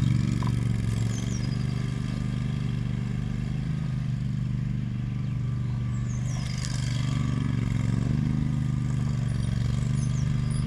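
Agria 9600 remote-controlled tracked mower's petrol engine running steadily while the mower drives across the grass.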